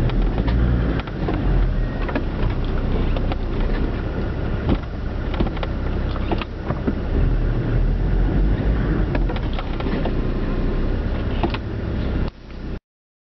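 Four-wheel-drive vehicle's engine running at a standstill, a steady low rumble heard from inside the cab, with scattered clicks and knocks. It cuts off abruptly near the end.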